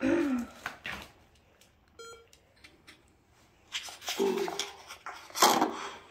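A handheld digital voice recorder gives one short electronic beep as its button is pressed, about two seconds in. Brief quiet voice sounds come before and after it, the loudest a breathy sound near the end.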